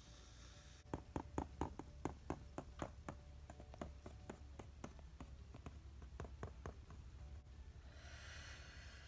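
Light plastic taps, about three or four a second and fading over several seconds, as a Barbie doll is walked across a plastic dollhouse floor. A brief soft rustle follows near the end.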